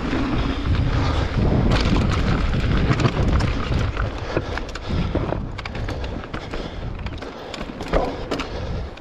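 Specialized Turbo Levo electric mountain bike riding fast down a dusty dirt trail: wind rumbling on the microphone, tyres crunching over dirt and rock, and the bike rattling with many sharp knocks. It gets quieter about halfway through as the bike rolls onto rock slab.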